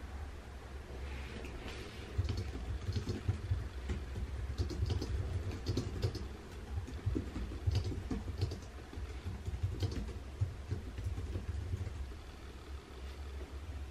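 Typing on a computer keyboard: irregular key clicks starting about two seconds in and thinning out near the end, over a steady low hum.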